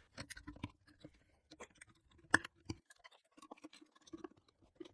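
Light, irregular clicks and taps of paint supplies being handled, with one sharper click a little over two seconds in.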